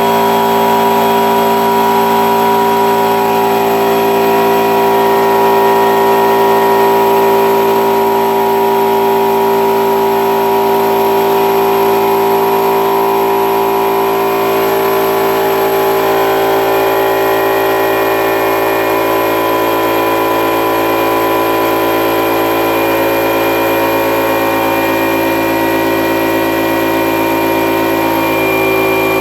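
Central Pneumatic 6-gallon oilless air compressor running continuously, its 1.5 horsepower motor and pump building pressure in the tank on first start-up. The steady drone shifts slightly in tone about halfway through.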